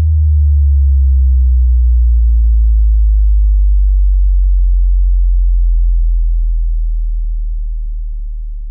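Closing sub-bass tone of an ambient electronic background-music track: one deep, loud tone held on its own, sinking slightly in pitch and slowly fading out.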